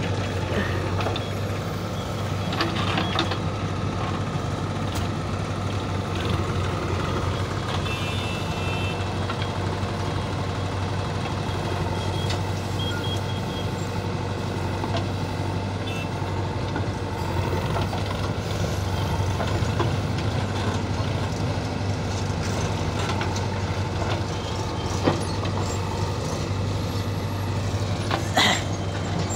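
JCB 3DX backhoe loader's diesel engine running steadily with a low hum while it digs and loads soil, with a few short knocks and clanks from the digging, the sharpest near the end.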